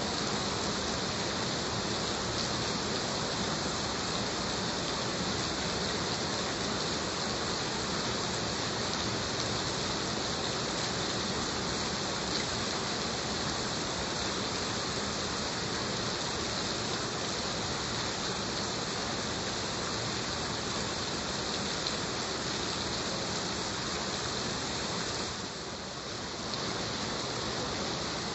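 Heavy rain falling steadily, a dense even hiss of drops, dipping briefly near the end.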